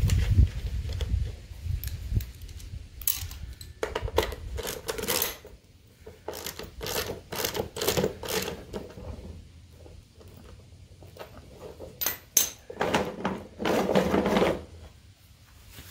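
A plastic lawnmower drive wheel and its mounting hardware being handled and fitted onto the axle: a low rumble near the start, then irregular bursts of clicking, rattling and scraping.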